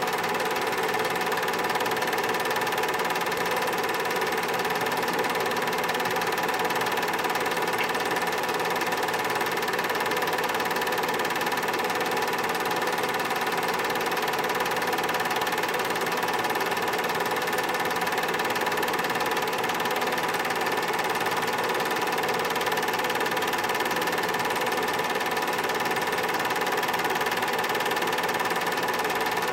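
Home-movie film projector running: a steady, unchanging mechanical whir with a few constant tones.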